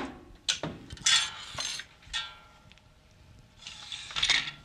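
Tools and small parts being handled on a workbench: a few sharp clicks and clinks with some scraping and rustling, as the soldering iron is taken out of its metal stand.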